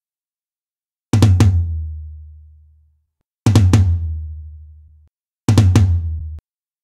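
Short snippets of a sample-replaced drum-kit track played back from a computer, three times in a row. Each snippet is a quick flurry of kick and snare hits with a deep low boom that rings out, and the last one is cut off abruptly.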